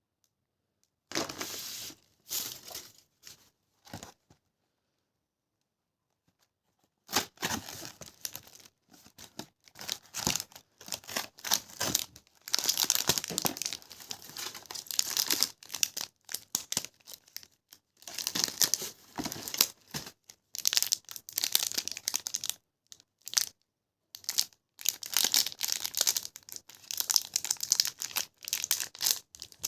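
Sweet wrapper being torn open and crinkled by hand, in irregular crackling bursts: a short flurry near the start, a pause, then near-continuous tearing and crinkling.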